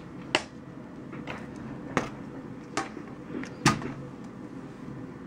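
Keyboards being handled and set down on a desk: four sharp knocks spread over a few seconds, with fainter taps and rattles between them.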